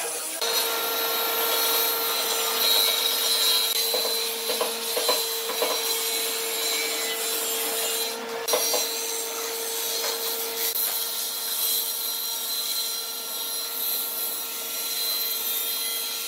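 Combination woodworking machine running with a steady motor hum while pine boards are fed across it and cut, a dense rasping wood-cutting noise over the hum; it breaks off briefly about halfway through, then goes on.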